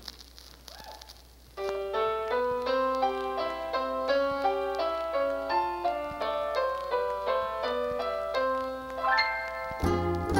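A piano starts about one and a half seconds in, playing a flowing line of quick broken chords; deeper bass notes come in under it near the end.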